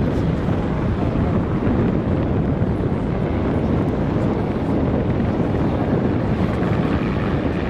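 Bell UH-1Y Venom helicopter hovering low, its rotor and turbine engines running steadily and loudly.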